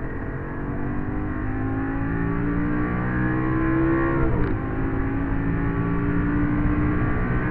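Lamborghini engine under hard acceleration, heard from inside the cabin: the engine note climbs steadily, drops sharply on an upshift about four and a half seconds in, then starts climbing again in the next gear.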